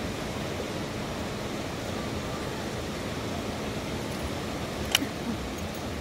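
Steady rushing background noise with a low rumble, and one sharp click about five seconds in as the hand coffee grinder is emptied of its grounds into a paper V60 filter.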